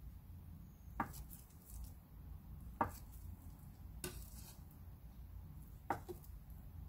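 Chef's knife cutting through a block of firm tofu and knocking on a wooden cutting board: four sharp knocks, one to two seconds apart.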